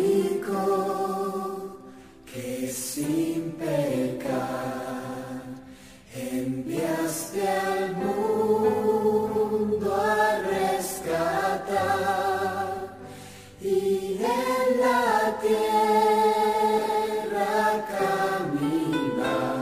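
Choir singing slow, long-held notes with vibrato, in several phrases with short breaks between them.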